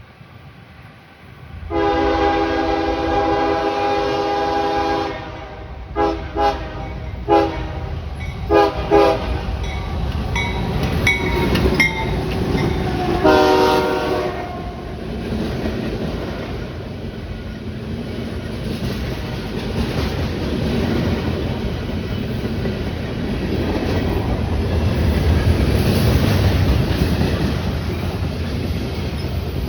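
Diesel locomotive air horn on a CSX freight train giving a horn show: one long chord blast of about three seconds, then five quick toots, then another blast of about a second. The train then runs past with a steady rumble and wheel clatter that swells near the end.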